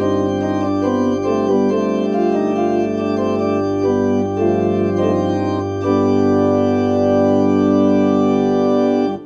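Church organ playing held chords over a sustained pedal bass, with a middle voice moving beneath the melody. A long final chord is held from about six seconds in and released near the end.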